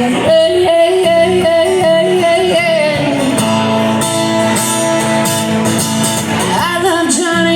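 Live band playing a country-rock song, with guitar prominent.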